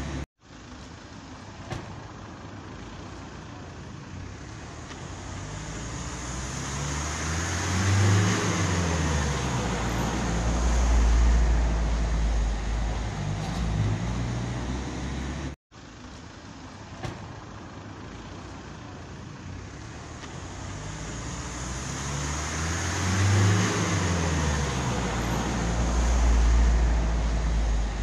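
Street traffic: a motor vehicle's engine grows louder and passes, its hum dropping in pitch, followed by a heavy low rumble. The sound cuts out for a moment about halfway, and the same pass plays again.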